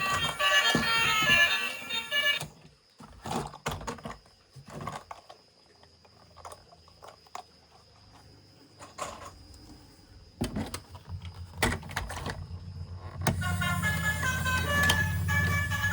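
Background music briefly, then several seconds of scattered light clicks and knocks of toys being handled. Near the end, music returns over a low steady hum.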